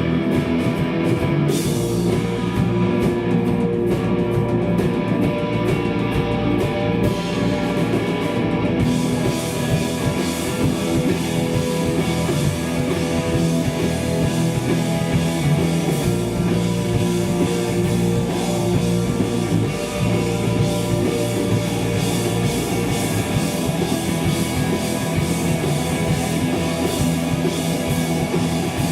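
Live hardcore band playing loud distorted electric guitars, bass and drum kit. The sound gets fuller and brighter about nine seconds in.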